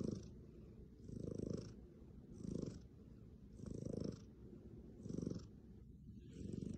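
Domestic cat purring contentedly as its head is stroked, the purr swelling and fading with each breath a little over once a second.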